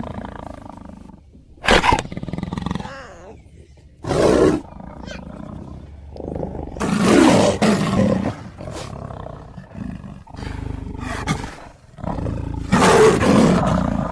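Big cat roars, a run of separate calls a few seconds apart. The longest and loudest come near the middle and near the end.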